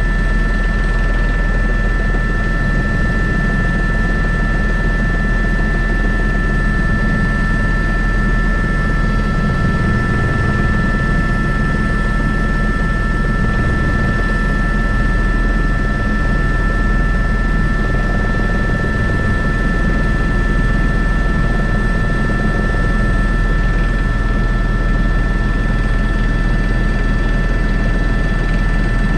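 Airbus H125 (AS350 B3) helicopter in flight, heard from on board: the steady beat of the main rotor under a constant high-pitched whine from its single turboshaft engine and gearbox, unchanging throughout.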